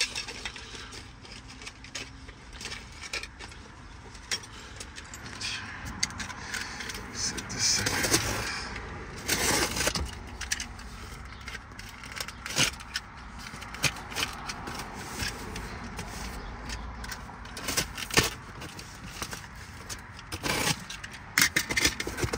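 A box cutter slicing packing tape on a cardboard box, with the tape crackling and the cardboard scraping and rattling as the box is handled: irregular scrapes and sharp clicks, with a few louder bursts.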